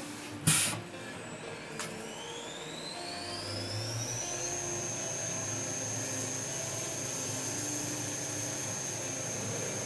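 CNC vertical mill's spindle spinning up to 8000 RPM: a high whine rises for a couple of seconds, then holds steady at speed, over the hiss of flood coolant. A loud clack comes about half a second in and a lighter tick near two seconds.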